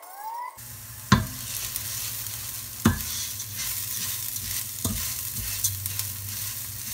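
Arborio rice toasting in olive oil, sizzling steadily in a large nonstick pot while a silicone spatula stirs it, with three sharp knocks of the spatula against the pot about two seconds apart. This is the stage where the grains are fried until their tips turn translucent.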